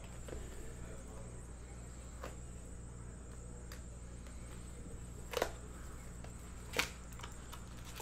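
Hands handling and opening a cardboard trading card box: scattered soft taps and clicks, with two sharper clicks about five and a half and seven seconds in.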